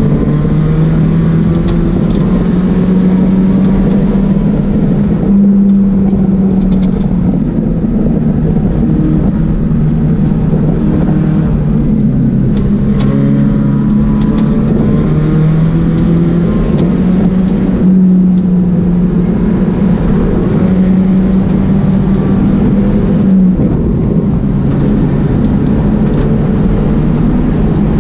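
Pontiac Solstice race car's engine running hard on track, heard inside the stripped cabin. The engine note climbs and drops sharply several times, loud and continuous.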